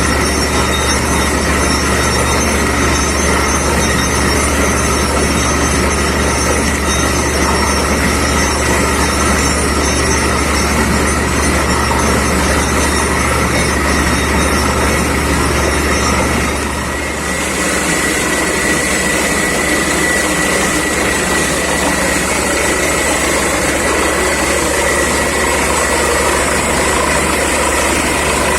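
Borewell drilling rig running steadily at the drilling site, a loud continuous low machine drone. About two-thirds of the way through it dips for a moment, then carries on with more high hiss.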